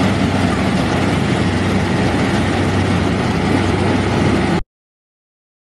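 New Holland combine harvester running steadily while harvesting wheat: a low engine hum under a broad rushing noise, cutting off abruptly about four and a half seconds in.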